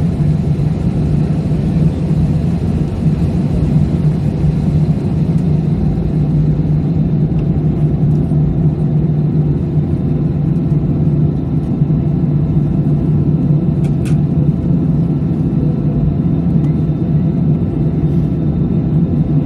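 Steady, loud rumble of an airliner's jet engines and airflow heard from inside the passenger cabin, holding even without rising or falling, with a brief click about 14 seconds in.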